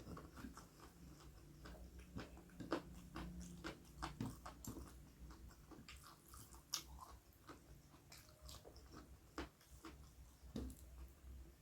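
A person chewing and biting into food close to the microphone: irregular small crunches and wet clicks of the mouth, several a second.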